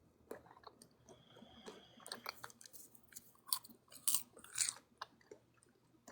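Faint mouth and nose sounds close to the microphone: small scattered clicks and a few short breathy bursts, the strongest about four seconds in.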